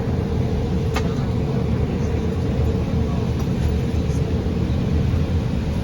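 Steady rumble of an Embraer 175 airliner's cabin, its jet engines and airflow running evenly, with a faint steady hum and a single small click about a second in.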